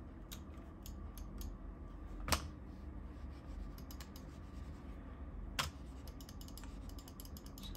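Scattered light clicks of computer keys and buttons being pressed, with two louder clicks about two seconds and five and a half seconds in, over a steady low hum. The presses get no response: the computer is not reading the mouse.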